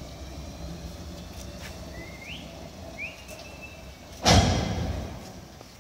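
Historic tram rolling slowly through the depot's curved track, with a low running rumble and two short rising squeals from the wheels on the curves. About four seconds in comes a sudden loud burst of noise that dies away over about a second.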